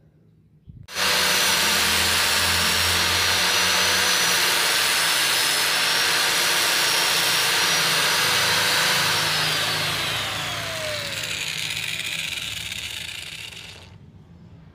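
Angle grinder fitted with a sanding disc, switched on about a second in and running at full speed with a steady high whine, then switched off and spinning down, its whine falling in pitch over the last few seconds.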